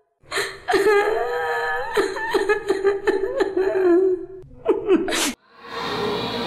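A high-pitched voice making drawn-out cries that waver in pitch, with no clear words, cut off suddenly a little over five seconds in; a hiss of room noise follows.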